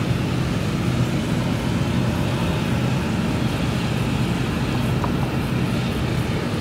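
Claas Jaguar 970 forage harvester's MAN V8 engine running steadily under load while chopping, together with the tractor pulling the trailer alongside: a steady low drone with no changes.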